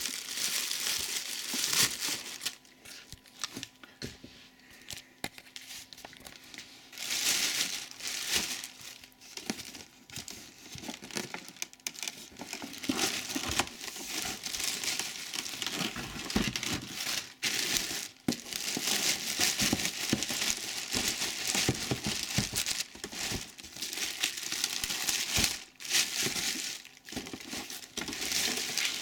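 Plastic bags and foam packaging wrap crinkling and rustling as a vacuum cleaner is unwrapped from its box, in irregular bursts with now and then a brief tearing sound.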